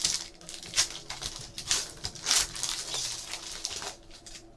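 Trading cards being handled: irregular soft rustling, sliding and flicking of card stock and plastic, which dies away near the end.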